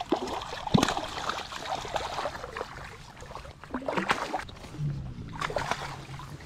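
A hooked speckled trout thrashing at the surface beside the boat as it is reeled in, throwing several sharp, irregular splashes over the hiss of choppy water.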